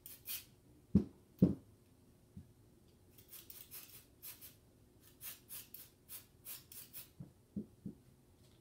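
Spray can of gun oil squirted in a run of short hissing bursts, about three to four a second, as the disassembled pistol parts get a light coat of oil. Two dull knocks about a second in, and a few small ones near the end, come from parts being handled on the table.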